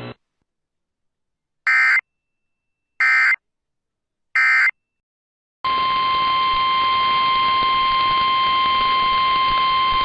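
Three short Emergency Alert System SAME header data bursts, each a brief warbling screech, about 1.3 s apart, marking the start of a new weather alert. About 5.5 s in, the steady single-pitch National Weather Service weather-radio alert tone begins over a hiss of radio static.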